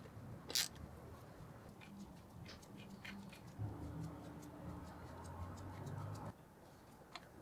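Small metallic clicks and ticks of hand tools and screws being worked on a motor's terminal block, with one sharper click about half a second in. A faint low hum is heard midway and stops about six seconds in.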